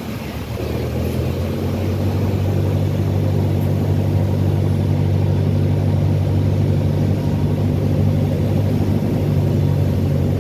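Cessna 172's piston engine and propeller droning steadily, heard from inside the cockpit on final approach to a grass airstrip. The drone grows louder about a second in, then holds steady.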